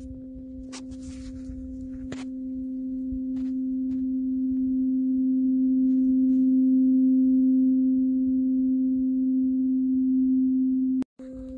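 A metal tuning fork ringing: one low steady tone with a fainter octave above it, slowly swelling in loudness. There are a couple of faint clicks in the first two seconds, and the tone cuts out briefly about eleven seconds in before resuming.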